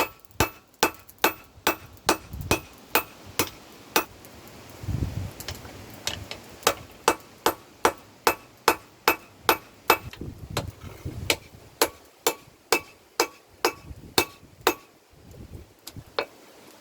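Hand hammer forging a hot mild steel flat bar on an anvil: sharp ringing blows at about two a second. The blows break off for about two seconds some four seconds in, then resume in a long even run that stops about two seconds before the end.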